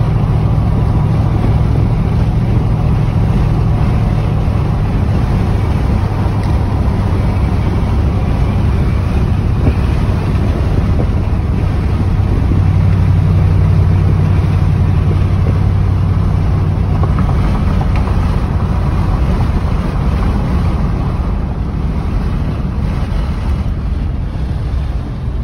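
Truck's engine and exhaust with a steady low rumble at cruising speed, heard inside the cab over tyre and road noise. The rumble swells a little about halfway through.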